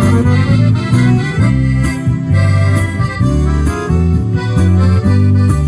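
Instrumental folk-pop played live by a small band: piano accordion carrying the melody over electric bass and twelve-string acoustic guitar, with bass notes changing every half second or so.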